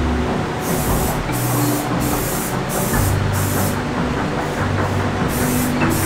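Aerosol spray-paint can hissing in short, repeated bursts as base coat is sprayed onto a fender.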